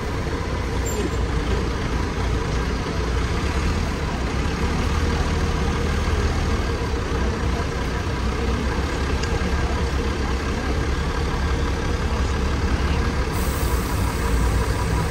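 Steady low rumble of a running vehicle, with no clear change in pitch or level.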